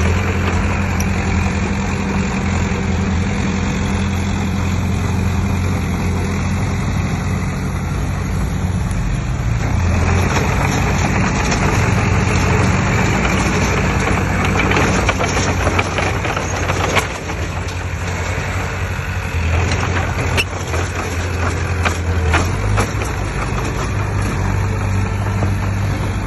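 Heavy diesel engine of earthmoving machinery running steadily, with a few sharp knocks or clanks in the second half.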